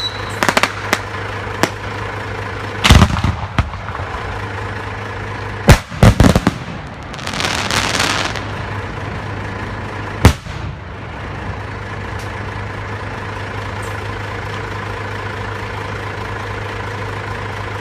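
Fireworks going off: a loud bang about three seconds in, a quick cluster of bangs around six seconds, a crackling shower just after, and a last bang near ten seconds. A steady low hum runs underneath throughout.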